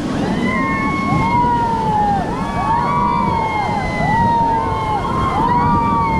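A raft crew shouting and whooping through a whitewater rapid: many overlapping long cries that rise and fall, over the rush of the water.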